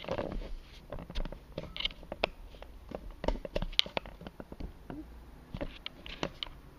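Handling noise: irregular light clicks, taps and rustles as the large sheet of sketch paper and the camera are moved about.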